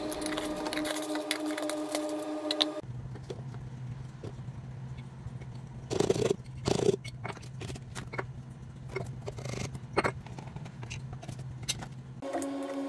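Glass and plastic spice jars clicking, knocking and scraping on a kitchen counter as they are handled and their contents poured from one jar to another, with two louder knocks about six and seven seconds in, over a low steady hum. A steady layered tone plays for the first few seconds and comes back near the end, each time starting or stopping abruptly.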